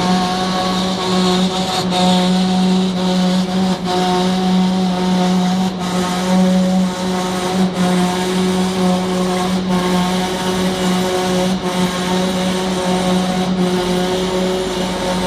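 Heavy horizontal lathe running while it turns a large crankshaft: a steady machine hum with one strong low tone and fainter higher tones above it.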